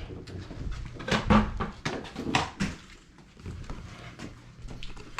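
Wood being knocked and pried loose: several loud knocks and bangs in the first three seconds, with quieter knocks after.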